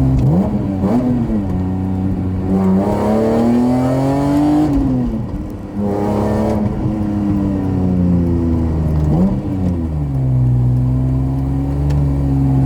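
BMW E46 M3's inline-six engine heard from inside the cabin under hard acceleration, its pitch climbing and dropping sharply at each upshift, about three times. Near the end it settles to a steady cruise.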